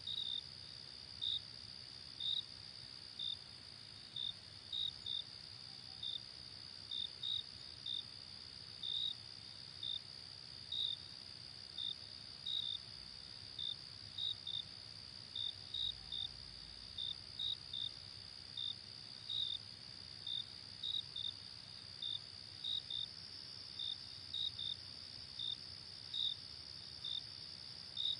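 Night insect chorus: a steady high-pitched trill under crickets chirping in short chirps, irregularly about twice a second, sometimes in quick pairs.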